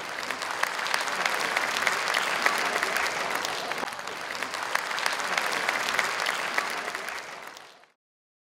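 Audience applauding, dense steady clapping that cuts off abruptly near the end.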